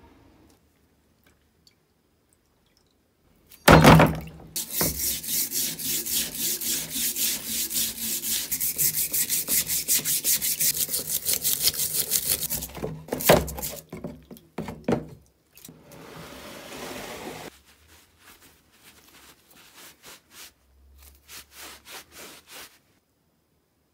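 A hand brush scrubbing a rusty steel wrench in a tub of soapy cleaning water, in quick back-and-forth strokes about three a second. A short steady hiss comes partway through, then lighter scrubbing near the end.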